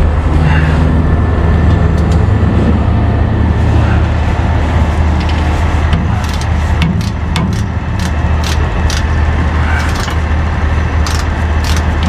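Tow truck engine idling steadily, with scattered sharp metal clicks and clinks from hand-tool work on a drive shaft.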